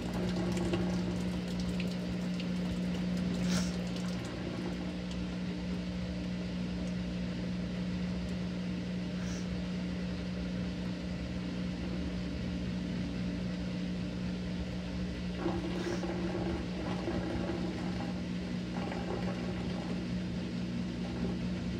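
Maytag top-load washer spinning its basket during a spray rinse, its motor and drain pump running with a steady low hum. Water spray hisses into the spinning basket in the first few seconds.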